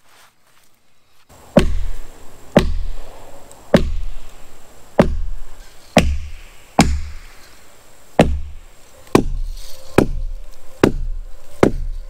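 Axe chopping at a felled pine log: about eleven sharp strikes at roughly one a second, starting about a second and a half in.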